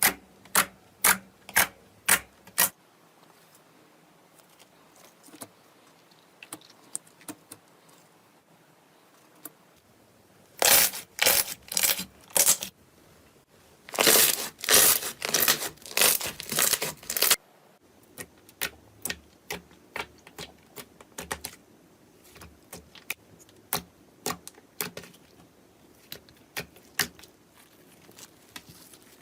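Slime being pressed and poked by hand, making crisp crackling and popping: about six sharp pops in quick succession at the start, two spells of loud, dense crackling around the middle, and scattered faint clicks the rest of the time.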